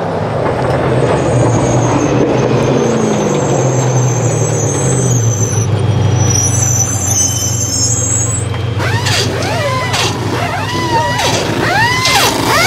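TT Spec trophy truck's engine running as it pulls into the pit. Its pitch falls between about two and five seconds in as the truck slows, and then it idles steadily. From about nine seconds in comes a quick run of rising-and-falling whirs from the crew's air tools as the wheels are changed.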